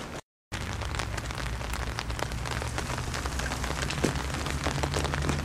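Crackly outdoor noise on a camcorder microphone, cut off for a moment by an edit just after the start, with a low steady hum underneath in the second half.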